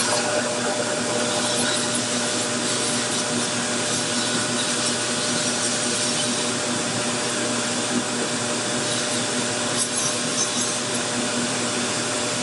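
Dental lab rotary handpiece spinning a sanding arbor band, running steadily with a motor hum under the hiss of grinding as it trims a vacuum-formed plastic reduction guide.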